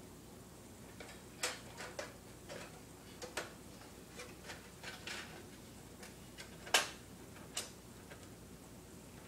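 Small irregular clicks and taps of a screwdriver working the screws of an Xbox 360 console, with one sharper click about two-thirds of the way through.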